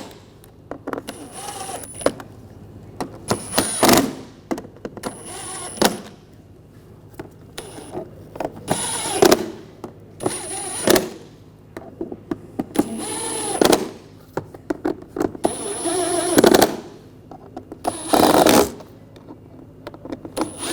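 Hand ratchet with a T20 socket tightening a row of screws, its pawl clicking rapidly in repeated short bursts with brief pauses between.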